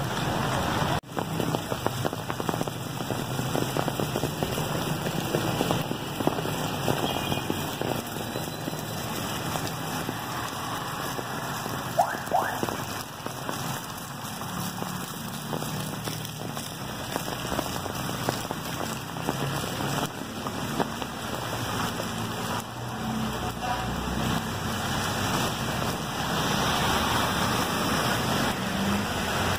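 Heavy rain falling on the street and pavement, a dense steady hiss. A short rising squeak is heard near the middle.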